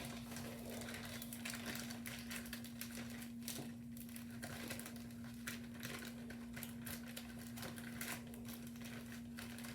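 Plastic bags crinkling in short, irregular crackles as they are handled and pushed one inside another, over a steady low hum.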